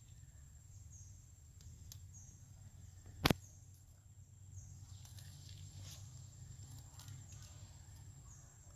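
Outdoor ambience with a steady low hum, faint short high chirps, and one sharp click a little over three seconds in.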